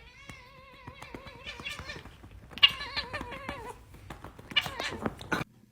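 A domestic cat meowing in three long, wavering calls, the first lasting nearly two seconds, with scattered light clicks.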